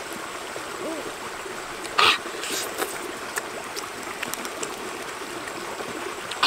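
A shallow stream running over rocks, a steady rushing hiss, with one short sharp noise about two seconds in.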